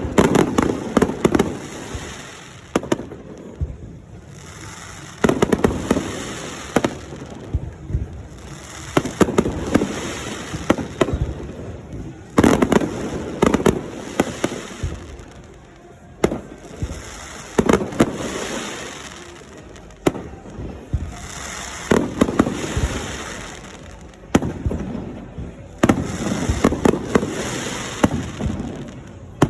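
Fireworks display: shells bursting in quick clusters every few seconds, sharp bangs followed by crackling.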